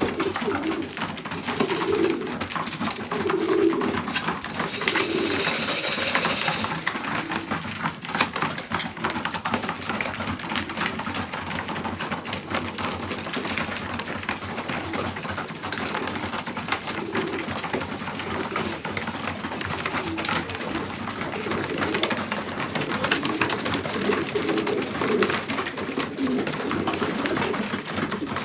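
Pigeons cooing over and over, with frequent light clicks and taps and a rush of noise for about two seconds around five seconds in.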